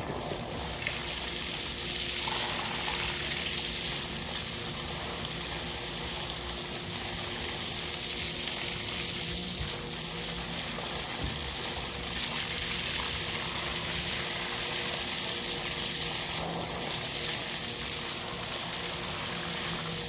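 Spring water pouring in a steady stream from an open pipe spout and splashing down below it.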